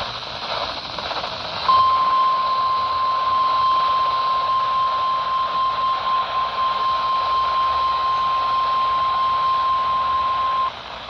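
NOAA Weather Radio 1050 Hz warning alarm tone coming through a weather radio receiver. After a moment of radio hiss, one steady tone starts about two seconds in and runs about nine seconds before cutting off. It announces a new severe thunderstorm warning broadcast.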